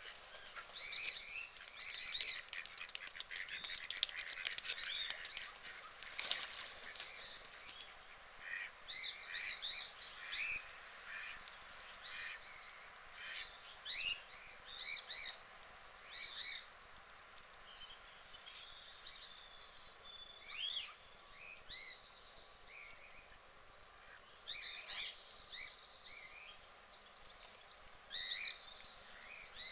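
Small birds chirping over and over in short, high calls, in quick runs with gaps between them. A short rustling burst comes about six seconds in.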